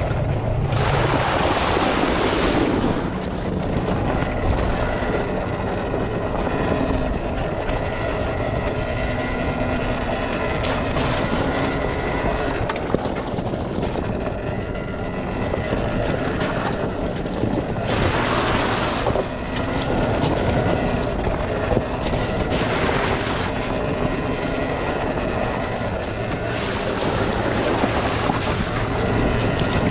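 Volcon Grunt electric off-road motorcycle riding a forest trail: motor and drivetrain whine rising and falling with speed over tyre noise and wind on the microphone. There are a few bursts of noise, the first about a second in as it runs through a puddle.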